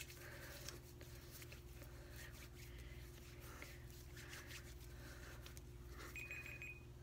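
Hands rubbing lotion in, heard as faint, soft swishes repeating over and over. About six seconds in, a timer starts beeping with a high, steady tone, marking the end of the seven seconds.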